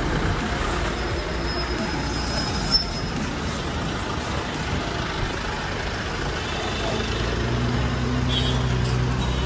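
Vehicle engines running amid steady road noise, with a single sharp knock a few seconds in. A low engine hum grows louder in the last few seconds.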